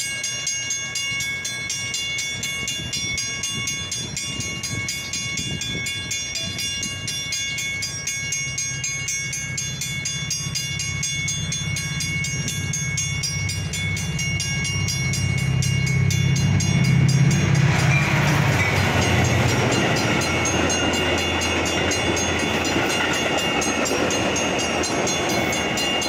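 Grade-crossing warning bells ring rapidly and steadily as the gates are down. A Metra commuter train approaches with a low rumble that grows louder, then passes through the crossing about two-thirds of the way in with a loud rushing noise of wheels on rail.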